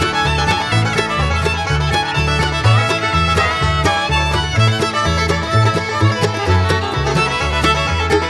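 Background music: upbeat bluegrass-style tune with fiddle over banjo and guitar, with a steady bouncing bass beat.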